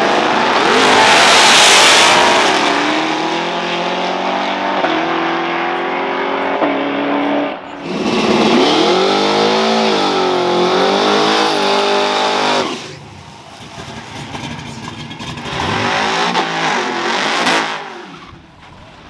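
Drag-racing street cars launching hard with a rush of engine and tyre noise, their engines then held at high revs with two sudden drops in pitch. After a cut, another car's engine revs down and back up during a smoky burnout, then falls quieter.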